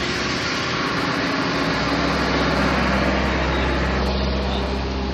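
A motor vehicle engine running steadily with a low hum, growing a little louder midway and easing off near the end.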